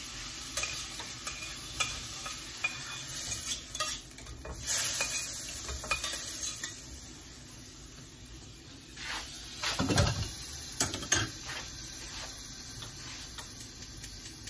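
Shrimp sizzling in a frying pan while a metal spoon stirs and scrapes against it with many small clicks. About ten seconds in the pan is tipped over a pot and scraped out, with a louder clatter and a few sharp taps of metal on metal.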